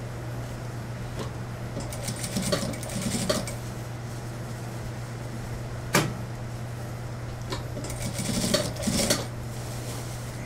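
Industrial lockstitch sewing machine stitching a sleeve into a suit jacket in two short runs, about two and eight seconds in, over a steady low hum, with a single sharp click about six seconds in.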